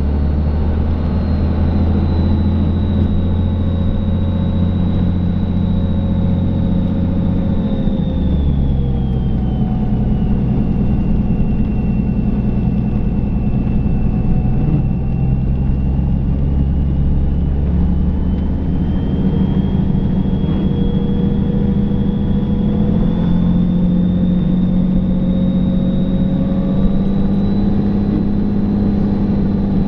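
Dodge Ram's Cummins diesel engine running while the truck plows snow. The engine note drops about eight seconds in and picks up again later. A high whine runs over it, sinking in pitch and then climbing back.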